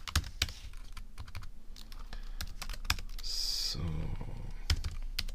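Typing on a computer keyboard: a string of irregular key clicks as text is entered.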